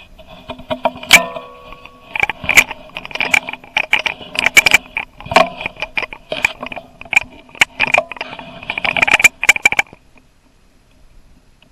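Handling noise picked up by a camera mounted on a rifle barrel: a rapid, irregular run of clicks, knocks and rattles for about ten seconds, then it stops. The sharpest knock, about a second in, leaves a brief metallic ring.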